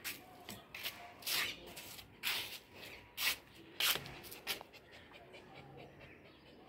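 A small white Spitz-type dog breathing hard with its tongue out: a series of short, breathy huffs at uneven intervals that die down after about four and a half seconds.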